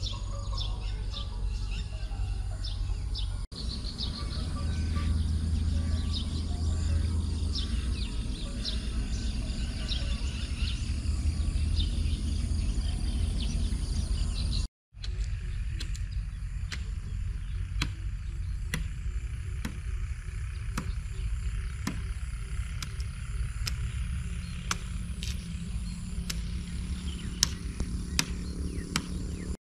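Outdoor dawn ambience: birds chirping over a steady low rumble. Many short chirps come in the first half, and sharper scattered ticks and calls in the second. The sound cuts out briefly about halfway through.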